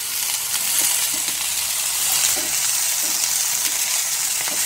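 Cauliflower florets and stalks sizzling steadily in hot oil in a nonstick pan, stirred and turned with a spatula.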